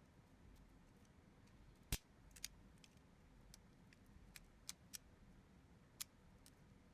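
About six small, sharp clicks and taps, spaced irregularly over a faint hiss, the loudest about two seconds in, as from handling small hard parts.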